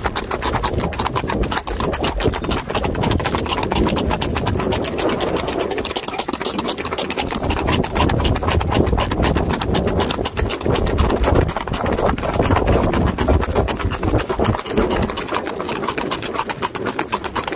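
Horses' hooves clip-clopping rapidly on a paved road at a fast gait, many hoofbeats a second with no pause, over a low rumble.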